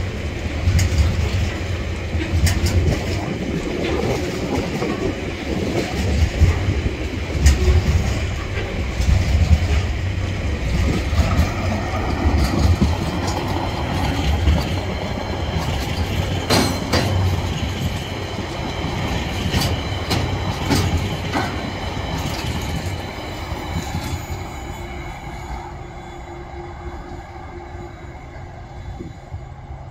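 Loaded container wagons of a long freight train rolling past close by: a heavy, steady rumble with sharp clacks from the wheels over the rail joints and a faint high squeal at times. The sound fades over the last several seconds as the end of the train draws away.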